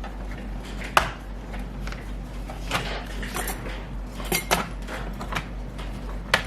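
Light clatter and sharp clicks of hard objects being handled, with a few louder knocks: one about a second in, a cluster a little past the middle, and one near the end.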